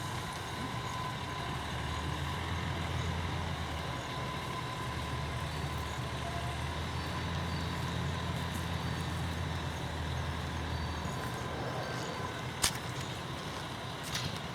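Low, steady engine hum of a road vehicle that briefly dips and fades out later on, with a single sharp click near the end.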